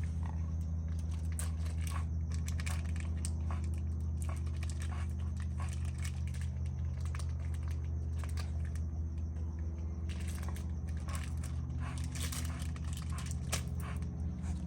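A dog chewing and tearing at a toy and its packaging, with repeated crinkling, crunching and clicking, over a steady low hum.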